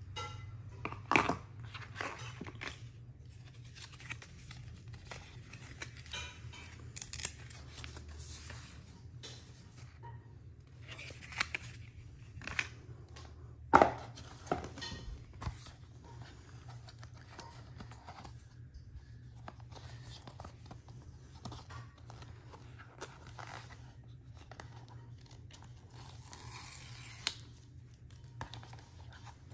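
Hands handling the paper and cardboard packaging of an Apple Watch: rustling and sliding of paper with scattered sharp taps, the loudest about a second in and near the middle.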